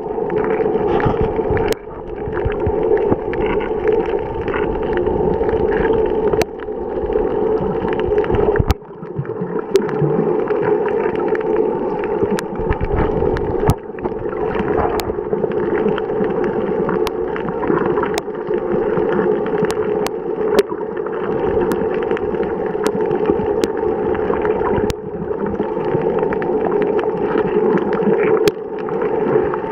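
Underwater noise from a camera held under the sea over a coral reef: a steady muffled rush of moving water with scattered sharp clicks. The rush drops away briefly a few times.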